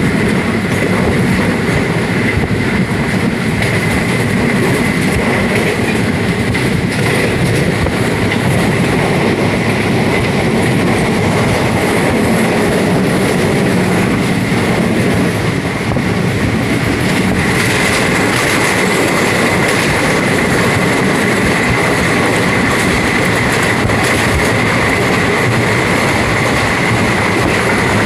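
Train running on the rails: a loud, steady rumble of wheels and cars with a steady high tone over it, which grows stronger about two-thirds of the way through.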